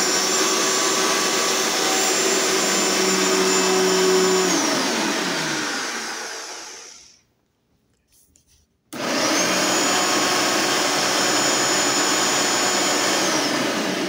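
Bissell upright vacuum cleaner motors, the first being the MicroLock, running with a steady high whine. About four and a half seconds in the motor is switched off and winds down to a stop. After a short pause with a couple of small clicks, a vacuum is switched on about nine seconds in, whines up to speed, runs, and starts to wind down again near the end.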